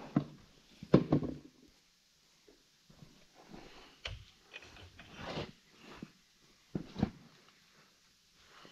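A few scattered knocks and a short metal scrape from parts being handled at an Eaton RTLO16913A transmission, as the input bearing is slid onto the input shaft. The sharpest knock comes about a second in.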